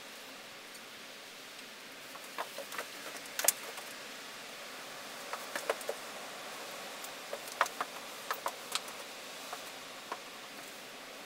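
Scattered light clicks and taps, a few at a time, over a steady hiss: small objects handled while painting.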